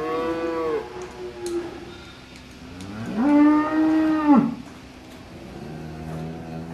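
Cows mooing: a call at the start, a louder drawn-out moo about three seconds in, and a lower, long call beginning near the end.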